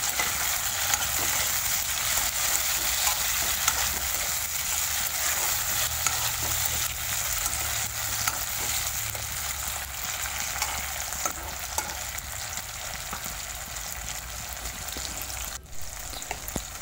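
Onion and tomato pieces sizzling in hot mustard oil in a wok while a spatula stirs through them: a steady frying hiss dotted with small crackles and pops, briefly dropping out near the end.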